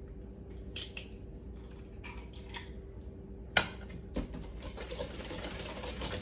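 A wire whisk in a stainless steel mixing bowl, beating an egg into melted butter and brown sugar. A few faint clicks come first, then a sharp clink of metal on the bowl about three and a half seconds in, and near the end the whisking builds into a fast, steady rattle.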